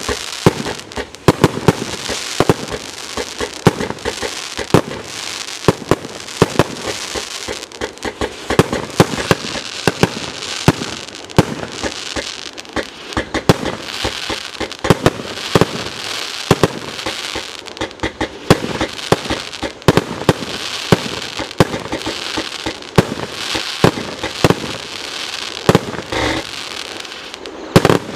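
A 30 mm, 100-shot F4 fireworks cake firing shot after shot in quick, irregular succession: sharp launch bangs and bursts, several a second at times, over a steady hiss from the rising tails and effects.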